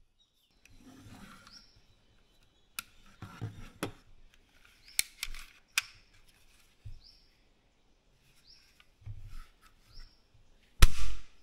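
Scattered plastic clicks and rattles as the parts of a 3D-printed Tic Tac shooter toy gun are handled and worked. Near the end comes one loud, sharp snap as the trigger is pulled and the firing pin is released.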